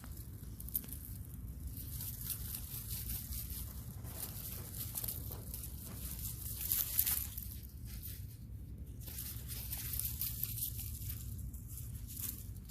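Soil and dry plant matter rustling and crunching in irregular scrapes while potatoes are being dug up.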